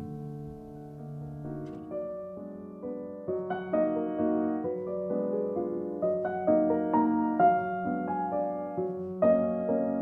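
Soft background piano music: held notes fade for the first couple of seconds, then a gentle melody of struck notes picks up.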